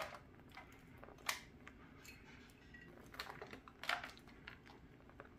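A few faint, sharp clicks and taps from hands working shredded cheddar out of a glass bowl and over a foil baking pan, with quiet handling in between.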